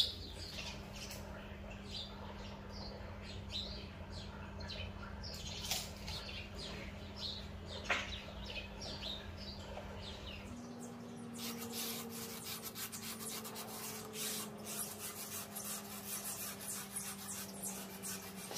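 Small birds chirping repeatedly over a low steady hum. About ten seconds in the hum shifts and the chirps give way to soft, dense scratching and rubbing.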